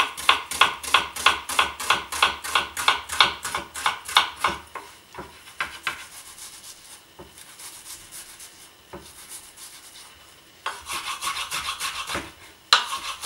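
Chef's knife cutting an onion on a wooden chopping board. It starts with quick even strokes, about four a second, slows to occasional single cuts in the middle, then goes back to fast chopping near the end.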